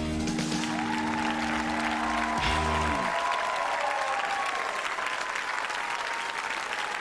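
Audience applauding over the band's last held chord, which stops about three seconds in, leaving only the applause. A long wavering tone runs above the applause.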